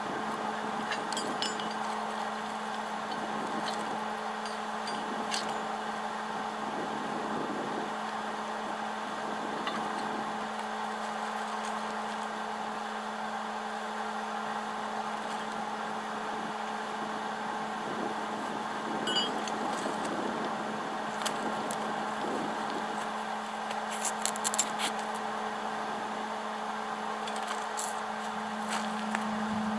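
Welding machine switched on and idling: a steady electrical hum with its cooling fan. A few light metal clicks and taps come about two-thirds of the way in, and the hum grows louder near the end.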